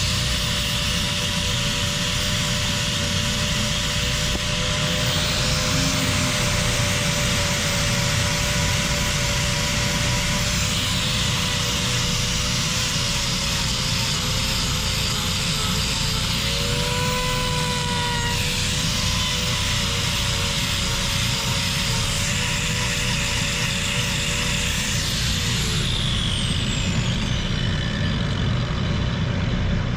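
Angle grinder with a hoof-trimming disc running and cutting into cow hoof horn, its whine dipping and wavering under load. Near the end it winds down, the pitch falling away.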